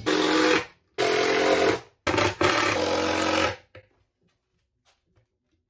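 Cordless drill driving screws to fasten handles onto a cabinet door, run at a steady speed in several short bursts of about a second each, then stopping.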